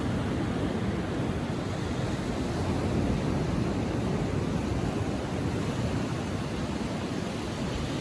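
Ocean surf washing onto a sandy beach at low tide: a steady, even wash of waves with no single break standing out, with some wind on the microphone.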